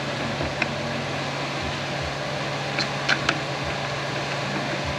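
Light metallic clicks and taps as a transfer case's shift fork assembly is worked into line inside the case: one about half a second in, then three close together around three seconds in. Under them, a steady background hum.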